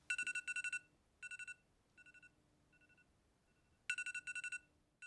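Electronic alarm beeping: rapid high beeps in quick groups, each group followed by fainter repeats, the loud pattern starting again about four seconds in.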